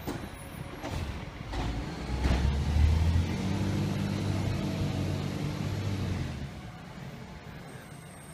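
Diesel garbage truck pulling away: the engine note rises and runs loud for a few seconds, then fades as the truck drives off. A few short clicks or hisses come in the first two seconds.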